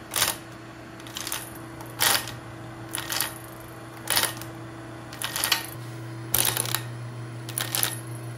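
Electric motor of a homemade forging press hums steadily while its chain drive pumps two 50-ton hydraulic bottle jacks, with a sharp clack about once a second at each pump stroke. The hum grows louder about six seconds in.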